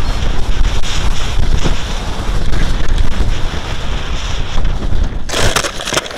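Wind buffeting the onboard camera microphone of a Sky Climber model plane in flight: a loud, steady rush with a heavy low rumble. About five seconds in, a sudden, brighter crackling burst breaks in as the plane comes down among coastal scrub.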